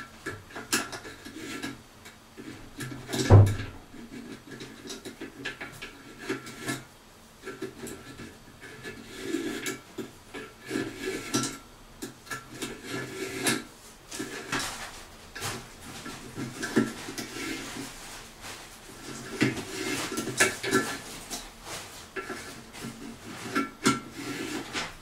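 Adjustable wrench on a corroded, crusted washbasin drain fitting: irregular scraping, rasping and clinking of metal as the old drain nut is worked loose and turned down its threads. One sharp loud knock comes about three seconds in.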